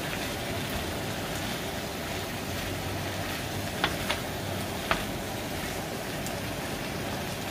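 Diced chayote cooking in a frying pan with a steady sizzling hiss while a wooden spoon stirs it, with three short clicks of the spoon against the pan about four to five seconds in.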